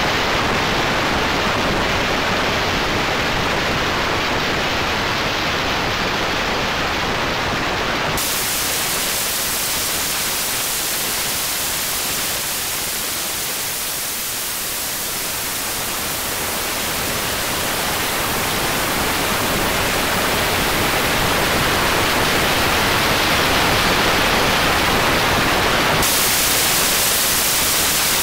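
Steady static-like electronic noise, a dense hiss without any tone. About eight seconds in its character switches abruptly to a brighter, thinner hiss, and near the end it switches back to a fuller, duller one.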